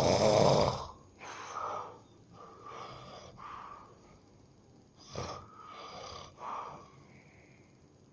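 A sleeping person snoring heavily: one loud snore at the start, then a run of shorter, softer breaths, and a lull near the end.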